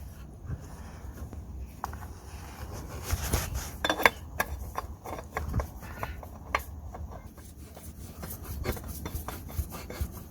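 New Bosch spin-on oil filter being screwed onto its threaded mount by hand: soft rubbing and scraping with scattered small clicks and ticks.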